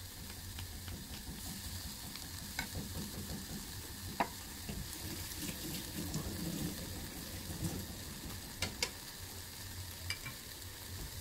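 Bacon, onion, pepper, mushroom and tomato filling with ketchup sizzling steadily in a small stainless saucepan on a gas burner, being cooked down to dry it into a thick paste. A few sharp clicks of the wooden spoon against the pan are heard now and then.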